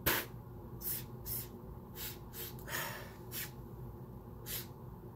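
A person sniffing nasal snuff up the nose: one hard sniff, then about seven shorter sniffs at uneven intervals.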